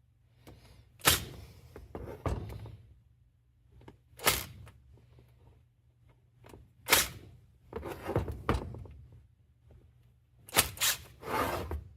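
Sharp metal knocks, about six spread out with short clattering after some: a hammer striking a hand impact driver to break loose seized flathead screws in a gear pump housing.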